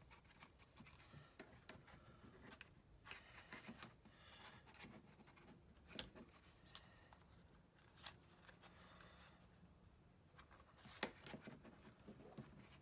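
Faint handling noises as a thin wire is bent and fitted around a puppet eyeball: light rustling of paper with a few small clicks scattered through.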